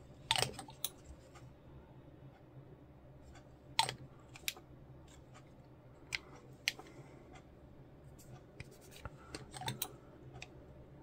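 Scattered light clicks and taps from small plastic model-kit parts and tools being handled, with the loudest just after the start and about four seconds in.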